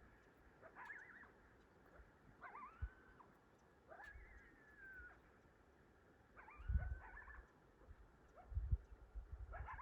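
A family of coyotes howling and yipping: short wavering calls that rise and then slide down, about five of them, some overlapping. Low bumps on the microphone come between them, loudest in the second half.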